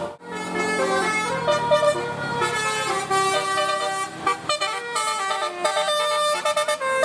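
Bus telolet horn, a multi-note musical air horn on a bus, playing a melody in stepped notes: longer held notes at first, then a run of quick short toots in the second half.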